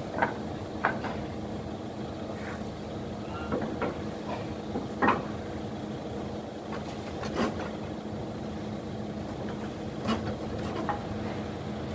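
A vehicle engine idling steadily, with a few short knocks and clatters of boards being handled at intervals, the loudest around five seconds in.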